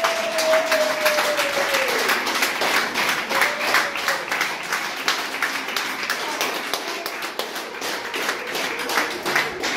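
A group of people clapping steadily, many hands at once. In the first two seconds one voice holds a long call that falls away at its end.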